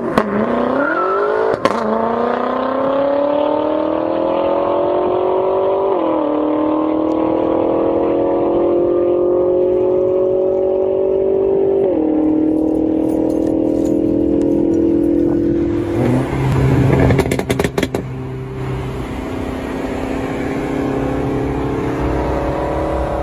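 Stage 4 tuned BMW M5 F10 twin-turbo V8 under hard acceleration, its pitch climbing steadily through each gear with upshifts about six and twelve seconds in. Around sixteen seconds in there is a stretch of crackling noise, followed by a steadier, lower engine and road drone.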